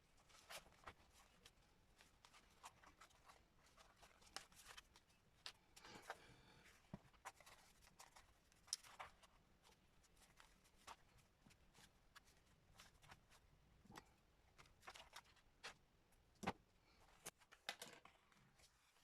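Faint, irregular clicks and taps of hands working paper and a handmade journal during bookbinding, sped up.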